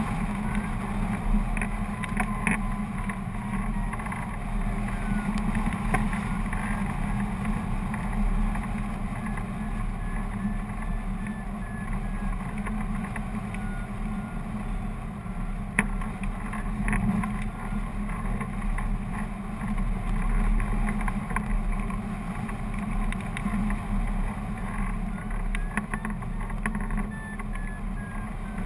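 Airflow over a hang glider in flight, a steady low wind rush on the microphone and glider. A faint string of high beeps that drifts up and down in pitch comes and goes, the variometer's climb tone while the glider climbs in a thermal.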